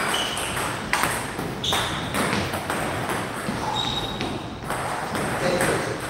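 Table tennis balls being struck by bats and bouncing on the tables: a string of sharp clicks at irregular spacing, some with a short ringing ping.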